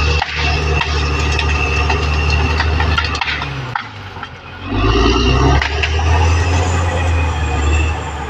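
Caterpillar D6R XL bulldozer working, its diesel engine running steadily under load with the clanking and knocking of steel tracks and ground. The engine sound dips for about a second around the middle, then picks up again.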